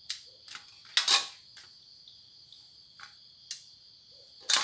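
Crickets chirring steadily, with several short, sharp rasps and clicks over them, the loudest about a second in and again near the end.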